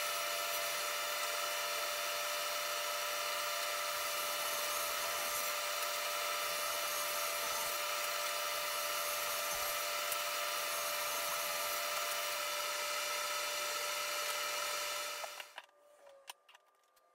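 SawStop 1.75 hp Professional Cabinet Saw running with a steady, high whine while ripping plywood into strips. The sound cuts off abruptly near the end, leaving a few faint clicks and taps.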